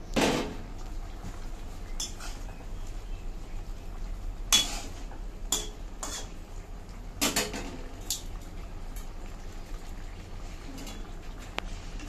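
Metal spatula clinking and scraping against an iron kadai as curry is stirred, in scattered strokes over a faint steady background, with a loud metal clank just after the start.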